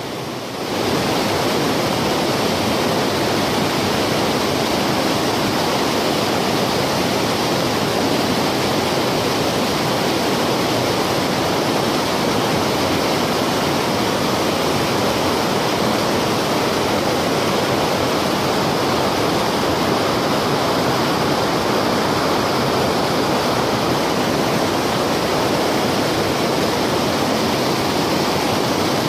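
Fast-flowing river water rushing over and between boulders in a shallow rocky riverbed: a loud, steady rushing, with a brief dip in loudness at the very start.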